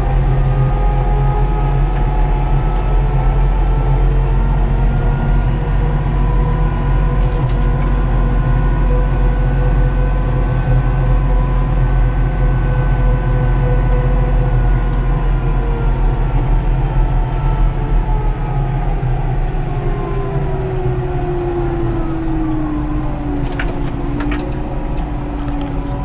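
Fendt tractor's diesel engine running under way, heard from inside the cab, its note steady and then falling about twenty seconds in as the engine slows. A few sharp clicks near the end.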